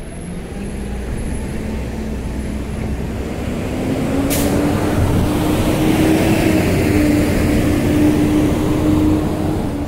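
Motor vehicle traffic passing close by on a city street. An engine hum grows louder over the first half and stays loud, rising slightly in pitch, with a brief hiss about four seconds in.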